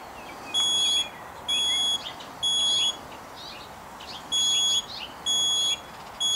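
Smoke alarm sounding: high-pitched beeps in groups of three, about one a second, with a longer pause between groups, the temporal-three alarm pattern.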